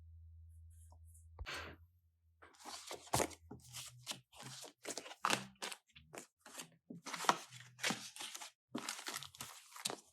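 Plastic and paper planner packaging being handled and crinkled: short, irregular rustles and crackles, one after another, starting about two seconds in.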